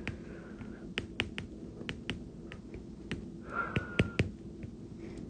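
Stylus tip tapping and clicking on an iPad's glass screen during handwriting: sharp, irregular clicks a few times a second over a faint low hum.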